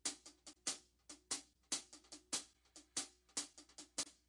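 A drum beat played on its own: sharp snare and kick hits in a quick, regular pattern, with no other instruments.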